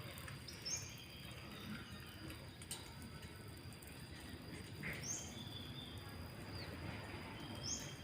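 Faint, short high bird chirps, three spaced across a few seconds, over a steady thin high-pitched tone.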